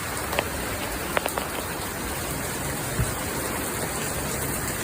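Heavy rain falling: a steady, even hiss, with a few sharp ticks of single drops.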